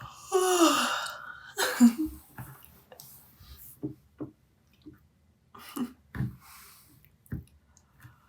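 A young woman yawning: a long voiced yawn that falls in pitch, then a second breathy burst, followed by quieter breaths and small mouth clicks.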